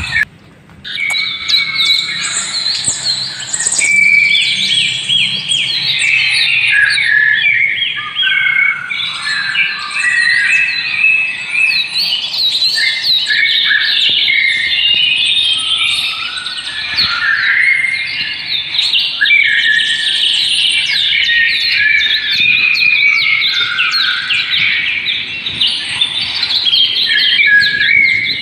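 Many birds chirping at once in a dense, continuous chorus of short, quick calls, with a brief dip just after the start.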